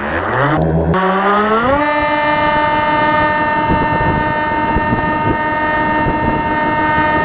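RC model plane's motor and propeller heard from on board, spinning up with a rising whine over the first two seconds, then holding a steady high-pitched whine at full throttle through takeoff.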